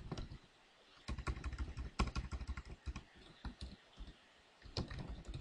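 Typing on a computer keyboard: several bursts of keystrokes separated by pauses of up to about a second.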